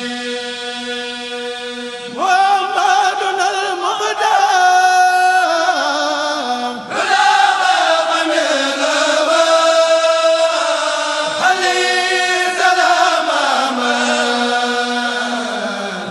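A voice chanting an Arabic devotional poem in long, drawn-out notes that slide between pitches. It swells louder about two seconds in and pauses briefly twice, as if for breath.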